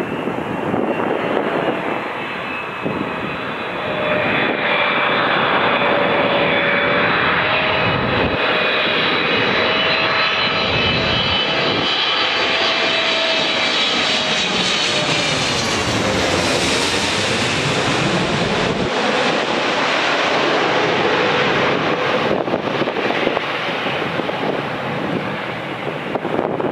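Boeing 777-300ER's GE90-115B turbofan engines on landing approach, flying directly overhead: a loud jet roar with high whining fan tones that drop in pitch as the airliner passes over about halfway through, then ease slightly as it moves off toward the runway.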